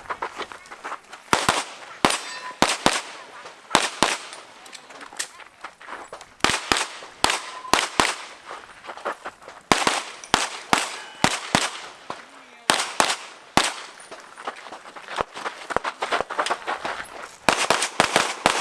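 Open-division IPSC pistol firing rapid strings of shots, mostly quick pairs, with short pauses between groups as the shooter engages successive targets on a stage.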